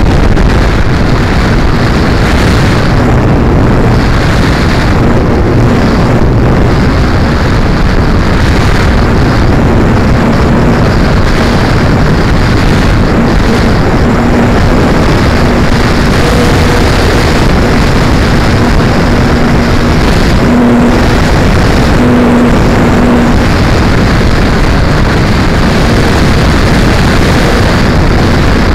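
Onboard a PZ Radian electric sailplane climbing under power: loud, steady rush of wind and airflow buffeting the camera's microphone, with the hum of its electric motor and propeller coming and going through the middle.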